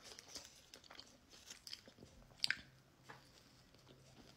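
Quiet chewing and biting into a toasted sandwich: soft crunches and small mouth clicks, the sharpest about two and a half seconds in.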